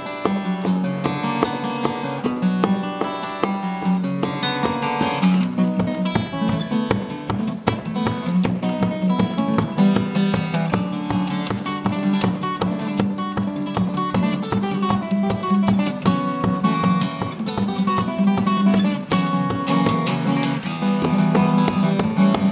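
Solo acoustic guitar played unamplified, fingerpicked with a steady bass line under a quick melody.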